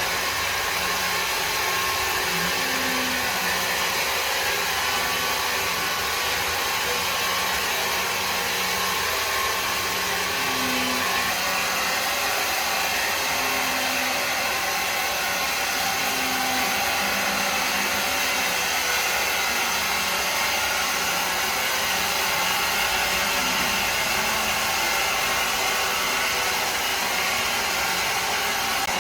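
Woodworking machinery running continuously with a steady, even whir and no breaks.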